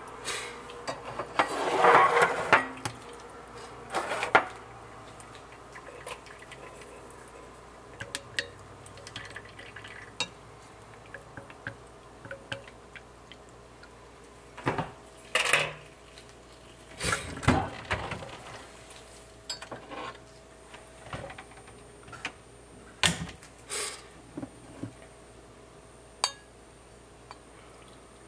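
Scattered clinks and knocks of a wooden stirring stick and glassware against a glass coffee server, as brewed drip coffee is stirred and handled. There is a longer, louder noisy stretch about two seconds in.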